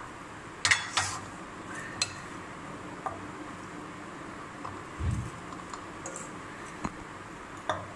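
A spoon clinking and scraping against a glass bowl and a glass jar as ground spice is spooned into the jar: a few sharp clinks, the loudest about a second in, more scattered through, and one dull thump about five seconds in.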